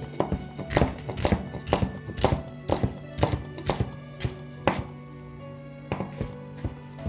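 Knife chopping on a cutting board, about two even strokes a second, pausing briefly about two-thirds of the way through and then a few quicker strokes near the end, with background music.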